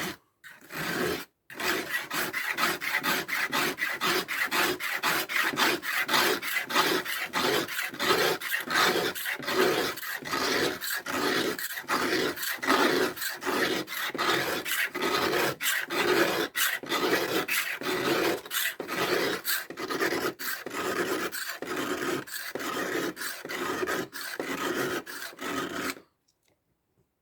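Small steel blade of a Victorinox pocketknife being stroked back and forth on a knife sharpener, a steady run of scraping strokes at about two a second, stopping about 26 seconds in. The blade is being honed until the shine on the edge disappears.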